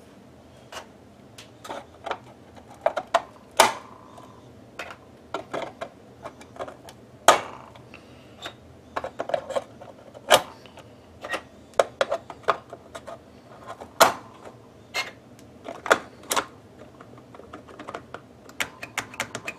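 Irregular plastic clicks and clacks of rocker switches being pushed and snapped into rectangular cut-outs in a plastic project box, some louder than others.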